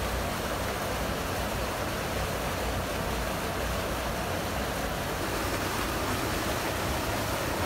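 Steady rushing of water pouring over a concrete canal weir, an even noise that does not change.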